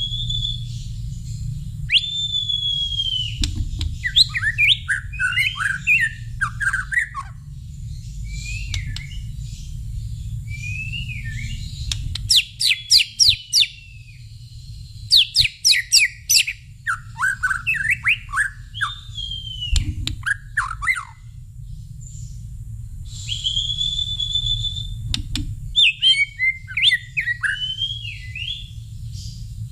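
White-rumped shama (murai batu) singing. It gives clear long whistles that rise and then dip, fast runs of quick falling notes and varied warbled phrases, in bouts with short pauses between them. A steady low hum runs underneath.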